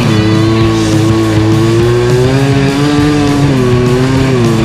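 Simson S51 two-stroke moped engine running under way on sand, its revs rising and falling gently, mixed with background guitar music.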